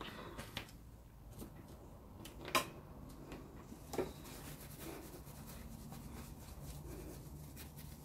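Quiet room with a faint low hum and two light clicks, about two and a half and four seconds in, with a few fainter ticks between.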